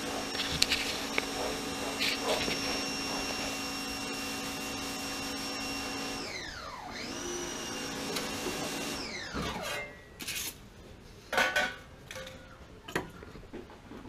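An electric motor whines steadily, then winds down about six seconds in, spins back up, and winds down to a stop. A few sharp knocks and clicks follow.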